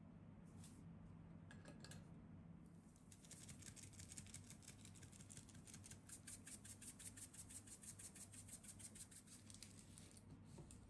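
Hand pepper mill grinding black pepper: a faint, rapid run of evenly spaced crackling clicks from the turning grinder, lasting about seven seconds before it stops.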